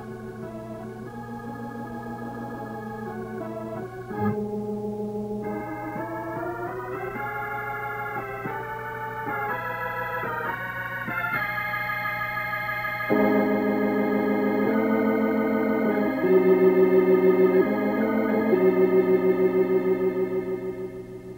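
Organ music of slow, held chords that shift in pitch over a steady low note, swelling louder about thirteen seconds in and easing off near the end.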